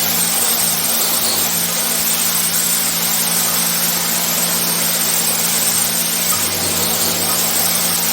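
High-pressure washer spraying an air conditioner's blower fan: a loud, steady hiss of spray over a constant motor hum.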